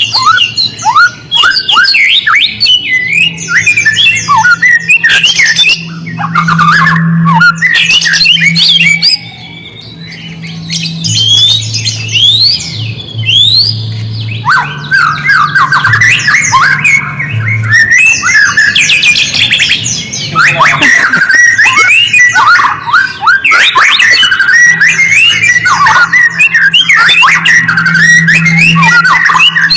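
White-rumped shama (murai batu) singing loudly in a fast, varied stream of whistles, rapid sweeping notes and chattering phrases, with brief pauses. It is played as lure song to make captive shamas answer. A low steady hum runs underneath.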